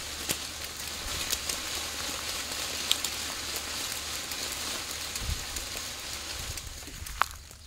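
Steady rustling hiss of leaves in a fruit tree, with scattered small clicks and snaps of twigs as the branches are worked.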